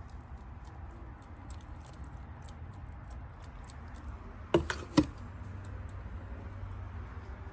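Light scratching and skittering of a bearded dragon moving after live food in its enclosure, with two sharp knocks about halfway through, half a second apart.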